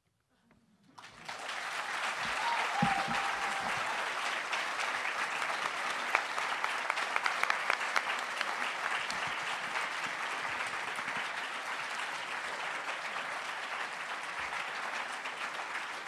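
Audience applauding, starting about a second in after a brief silence and continuing steadily.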